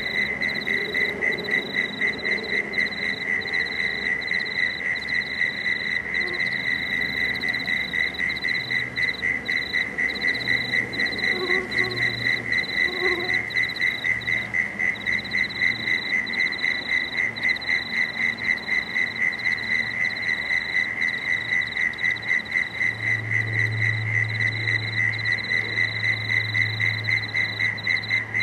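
Frogs calling in a continuous chorus: a steady, high, rapidly pulsing trill that never lets up. A low hum grows louder near the end.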